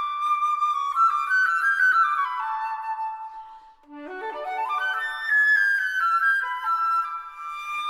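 Background flute music: a melody of held notes, with a quick rising run of notes about four seconds in.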